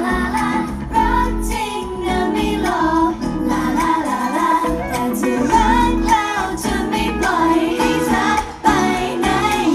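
Female pop vocals sung into handheld microphones over loud pop music with a heavy bass, through the stage sound system.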